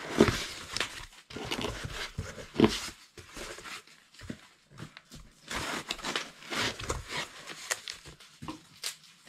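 Cardboard box flaps and foam packing being handled and pulled out: irregular rustling and scraping with a few sharper knocks.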